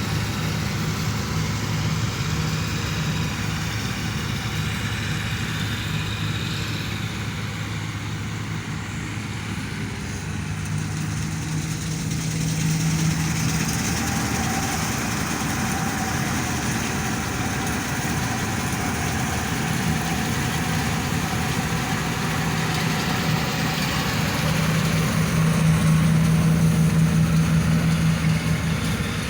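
Combine harvester running steadily while cutting wheat, its engine drone over a broad rushing noise. The drone swells louder twice, about halfway through and again near the end.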